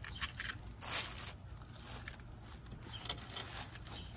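Shards of a broken ceramic vase scraping and crackling against a dense lucky bamboo root ball as they are pried off by hand: a few short scrapes, the loudest about a second in.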